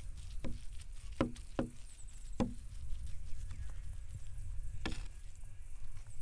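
Large curved steel kebab cleaver (satur) chopping lamb and beef mince on a wooden block, hand-mincing the meat into a sticky paste for kebab bonab. The chops come irregularly, some under a second apart, with a longer gap before a sharp strike about five seconds in.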